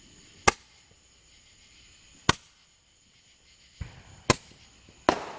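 Fireworks going off: about five sharp bangs, a second or two apart, the last one trailing into a longer rushing noise.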